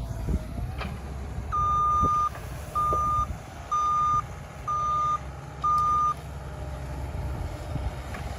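A vehicle's reversing alarm beeping five times, about once a second, over the steady low rumble of its engine running.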